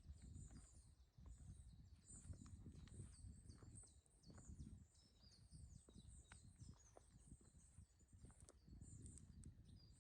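Faint birdsong: small birds chirping in many quick high notes, over a low rumble.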